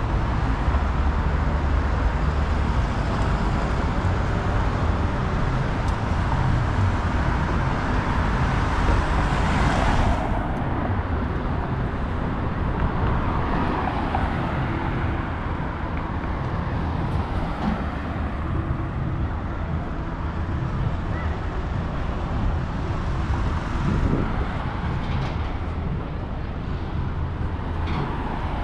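Street traffic passing. A vehicle goes by loudly through the first ten seconds and then cuts away sharply, leaving a steadier traffic hum.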